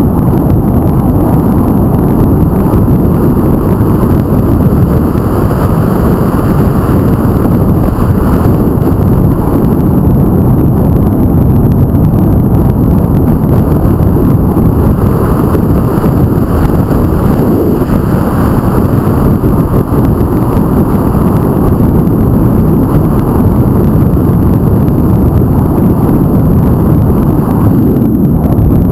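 Steady, loud wind rushing and buffeting over an action camera's microphone as it travels along a road.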